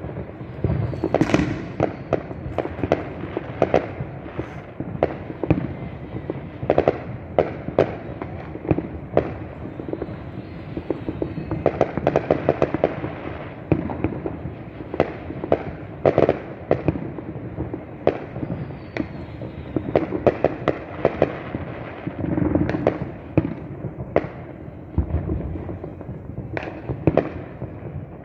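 A fireworks display: a continuous barrage of overlapping bangs and crackling pops, with no let-up, heard from a distance.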